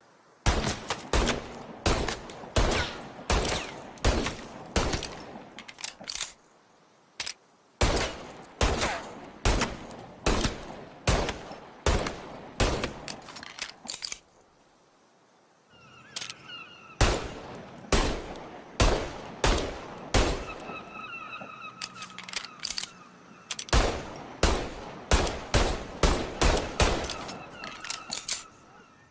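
Shots from an M1911A1 .45 ACP semi-automatic pistol, fired as single shots in quick strings of roughly two a second, with two short pauses. A faint ringing tone lingers after some of the later shots.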